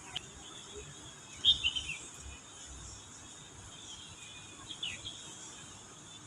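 Lovebirds chirping: a quick cluster of short, shrill chirps about a second and a half in, and two more just before five seconds, over a steady high-pitched hiss.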